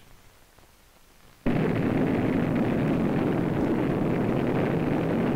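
Rocket launch: quiet at first, then about a second and a half in the rocket motor's exhaust noise starts suddenly and runs on loud and steady as the rocket lifts off.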